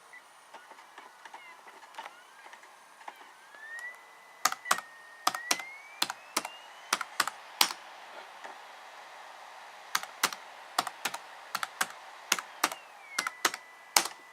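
ThinkPad T61 laptop keyboard keys pressed one at a time, clicking in irregular runs from about four seconds in, with a pause in the middle. A faint whine rises and falls in pitch behind the key clicks.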